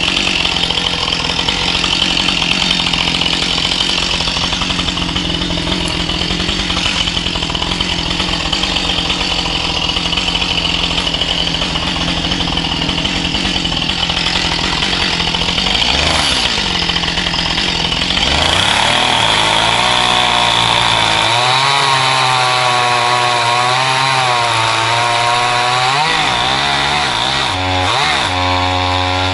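Stihl MS211C two-stroke chainsaw running hard and cutting into a dead tree. In the second half its engine pitch rises and falls repeatedly.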